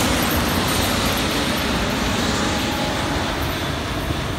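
Jet noise from a Boeing 777's twin turbofan engines as the airliner flies low on final approach, a steady rushing sound that slowly fades as it passes.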